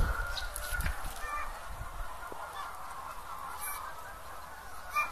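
Brown laying hen making a few short, faint sounds, with a louder one near the end. The hen is shown as a bird with infectious bronchitis, a respiratory disease of chickens.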